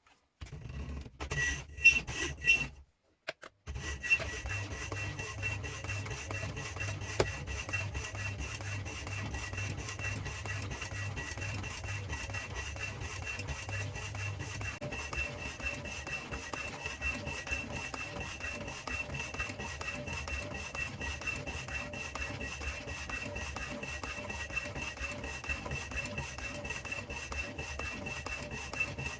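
Homemade wooden power hacksaw, driven by a washing-machine motor by belt, running and sawing: a steady rasp of rapid, even blade strokes over the motor's low hum. A few knocks and a brief break come first, then it runs without change.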